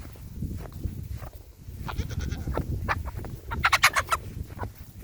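A goat bleating twice, a short call about two seconds in and a louder one near four seconds, over a low rumble.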